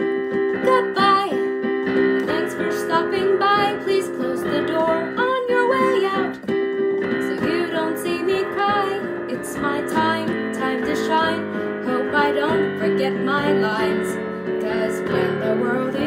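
Music: a song passage of keyboard chords and guitar, with a wavering melody line above them and no sung words.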